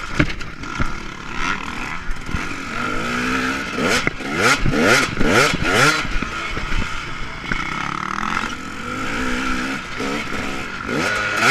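KTM 250 dirt bike engine being ridden hard, its pitch climbing and dropping again and again as the throttle is worked and the gears change, with a quick run of sharp revs about four to six seconds in. A knock sounds near the start, heard close up from the rider's helmet.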